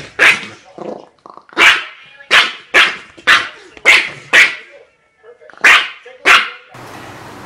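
Small dog barking: about nine short, sharp barks in uneven bunches. Near the end the barking stops and a steady low hiss takes over.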